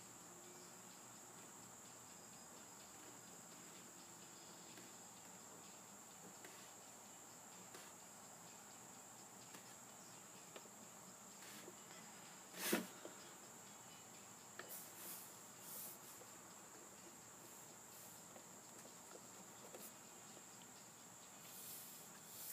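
Near silence with a steady faint high-pitched whine, broken by a few short scratches of a pen on sketchbook paper and one sharp tap a little past halfway.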